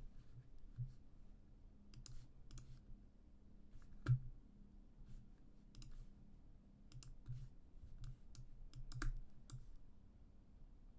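Faint, irregular clicking and tapping of a computer mouse and keyboard, with the sharpest click about four seconds in.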